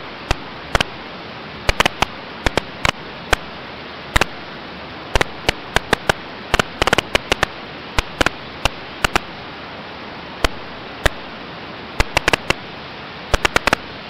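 Steady hiss of a cockpit intercom audio feed, broken by frequent irregular crackling pops of static.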